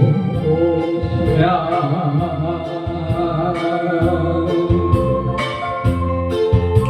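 A singer holds the last word of a Mandarin ballad line over backing music, then the accompaniment carries on alone as an instrumental interlude with a steady beat.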